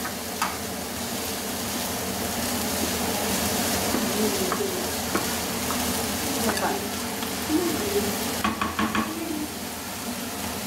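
Chopped onions, green chillies, ginger, tomatoes and tutti frutti sizzling in oil in a frying pan on a gas burner, a steady hiss. Over it, a spoon stirs dosa batter in a glass bowl, with a few light clinks.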